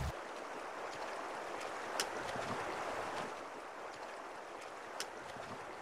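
The Paria River running: a steady, even rush of flowing water, with two faint clicks about two and five seconds in.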